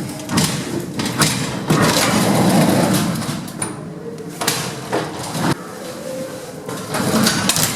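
Goods lift doors and gates sliding and clattering, with several sharp knocks and bangs of metal.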